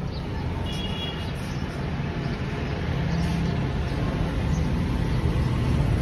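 A steady low rumble, like a motor vehicle running, growing slightly louder toward the end, with a brief faint high chirp about a second in.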